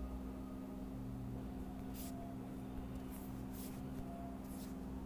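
Quiet room tone from a voice-over microphone: a steady low hum with a few short, soft hisses.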